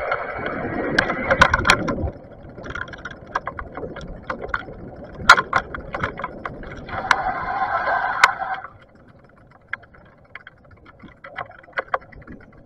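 A Bafang BBS mid-drive e-bike motor whining under power for the first two seconds and again from about seven to nine seconds in, with low rumble at the start. Sharp clicks and rattles from the bike run throughout, and after the second whine it rolls on more quietly with scattered ticks.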